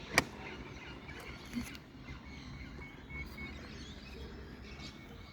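Quiet outdoor background with a single sharp click just after the start and a few faint, short bird chirps in the middle.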